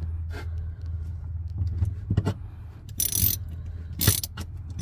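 Lock nuts being run down with a wrench onto a boat seat's screw studs: short strokes of metal clicking about a second apart in the second half, over a steady low hum.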